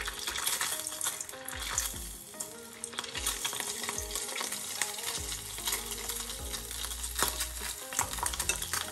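Salmon skin deep-frying in hot seed oil in a small saucepan, a steady sizzle with many fine crackles as it is moved about with metal tongs.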